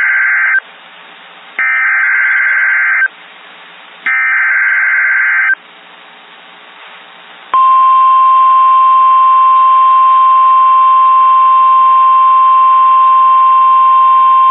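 Emergency Alert System alert tones: the end of one burst of buzzing digital header data, then two more bursts about a second apart, followed about seven and a half seconds in by a loud, steady single-pitch attention tone that holds. They signal a severe thunderstorm warning about to be read.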